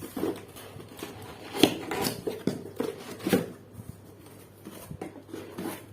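A power-tool box and its packaging being opened and handled by hand: scattered clicks, knocks and rustles, with a few short squeaks. The loudest knocks come just under two seconds in and again a little over three seconds in.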